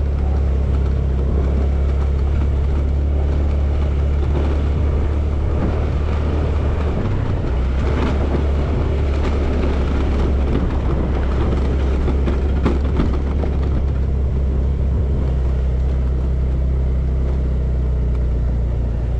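Honda Activa scooter ridden up a steep hill road, its engine running steadily under load with a heavy low rumble throughout.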